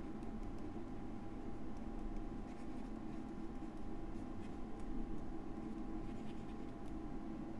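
Stylus scratching and tapping on a pen tablet as words are handwritten, faint over a steady low electrical hum.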